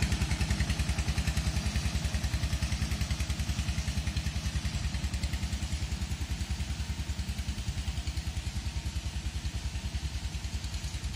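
Diesel tractor engine running steadily, a rapid, even low chugging.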